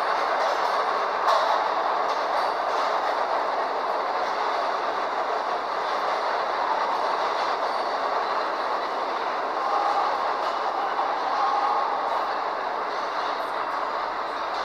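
Vintage BMT D-type subway train running through an underground station: a steady noise of wheels on rails and the moving cars, with a few faint clicks.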